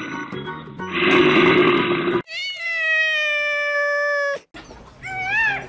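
A run of different animal calls: a rough growl for about two seconds, then one long steady high-pitched call, then short rising-and-falling calls near the end.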